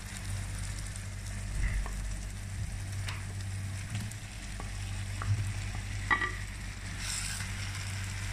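Onion-tomato masala gravy sizzling in a nonstick pan as fried chicken pieces go in from a plate and are stirred with a wooden spatula. A few light knocks against the pan are heard, one ringing briefly about six seconds in.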